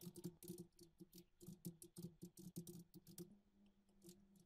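Faint computer keyboard typing: a quick, irregular run of key clicks for about three seconds, then a couple of isolated keystrokes near the end, over a faint steady hum.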